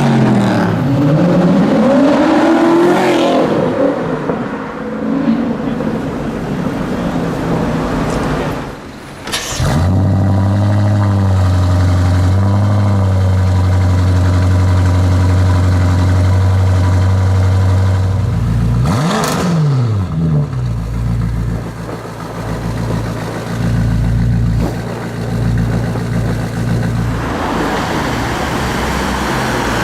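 Supercar engines in a city street. First an engine revs in rising and falling sweeps; after a cut about ten seconds in, an engine idles with a deep steady note, blips up and back down once about two-thirds of the way through, then settles to idle again.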